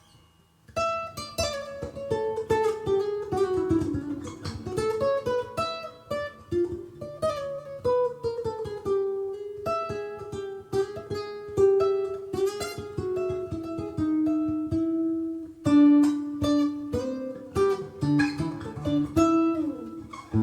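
Acoustic guitar played fingerstyle: a steady run of plucked notes carrying a moving melody line, starting about a second in.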